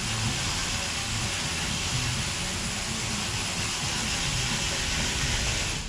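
A steady, loud hiss that stops abruptly near the end.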